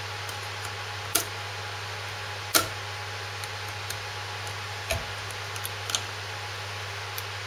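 Circlip pliers and a steel circlip clicking against the rear output shaft and high-speed gear of a Land Rover LT76 transfer box as the new circlip is fitted: a handful of sharp clicks, the loudest about two and a half seconds in, over a steady low hum.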